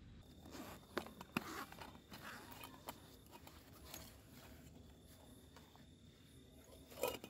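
Metal camp cookware being handled: light rustling with sharp clinks and knocks about a second in and again near the end. A faint steady high insect drone runs behind it.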